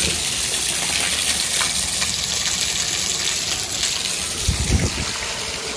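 Water gushing out of a rooftop drain spout and splashing onto the ground below, a steady rushing splash: runoff from washing the roof. A few low thumps come a little before the end.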